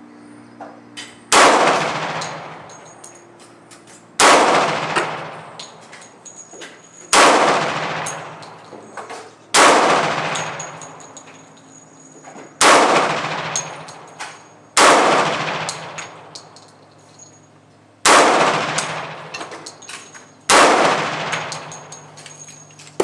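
Beretta PX4 Storm .45 ACP pistol fired eight times in slow, aimed fire, one shot every two to three seconds, each shot trailing off in a long echo. Fainter clicks and pops come between the shots.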